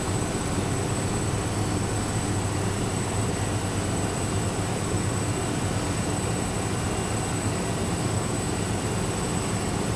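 Steady low rumbling noise with hiss and a thin high whine, unchanging throughout.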